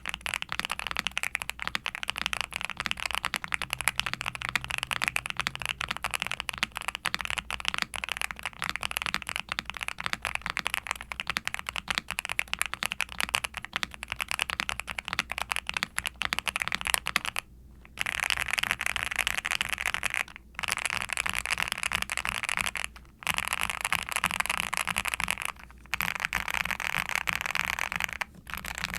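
Fast, continuous typing on a Nuphy Kick75 mechanical keyboard with lightly lubed Kailh Cream Pro linear switches, a polycarbonate plate, full internal foam and double-shot ABS keycaps. In the second half the typing comes in runs of two to three seconds, broken by brief pauses.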